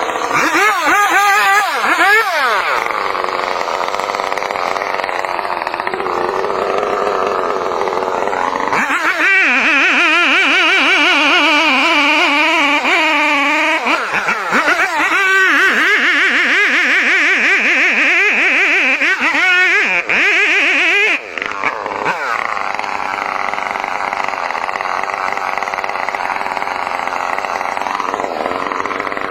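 Chainsaw running and cutting, its engine note repeatedly rising and falling as the throttle is worked.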